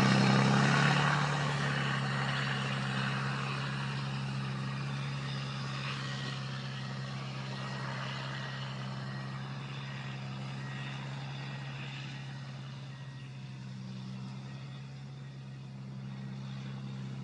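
Prinoth Everest snow groomer's diesel engine running with a steady low hum, fading over the first few seconds as the machine drives away and then holding steady at a distance. A faint, evenly repeated high beep sounds through the middle.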